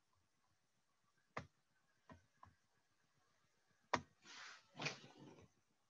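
Near silence broken by a few sharp computer mouse clicks, four in all, the loudest about four seconds in, followed by a brief rustle.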